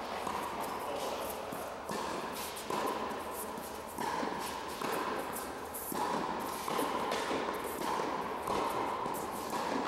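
A tennis rally of volleys: ball struck by racquets about once a second, each hit echoing in an indoor tennis hall.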